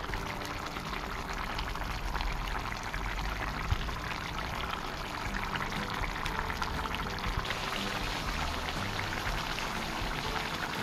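Fish curry simmering in a wide metal pot, the gravy bubbling with a steady, dense crackle of small pops.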